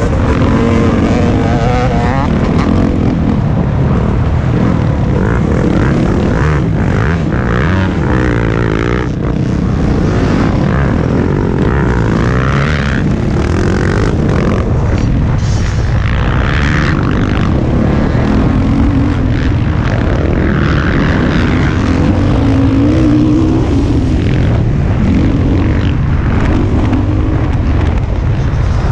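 Motocross dirt bike engine running hard on the track, its pitch rising and falling over and over as the rider accelerates and shifts.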